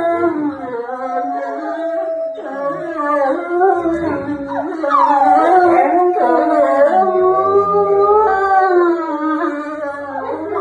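A large wolf-like dog and a young boy howling together in long, wavering, overlapping howls, with one howl sweeping up and falling back about halfway through.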